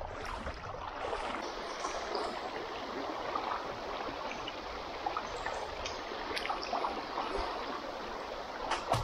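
Swift river current rushing steadily past a wading angler, with a few sharp ticks, the loudest near the end.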